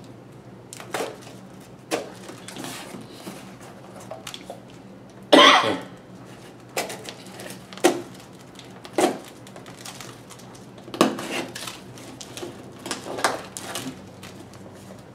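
Packing tape being pulled and torn from a cardboard box: a series of about ten short scratchy rips and scrapes, the longest and loudest about five seconds in.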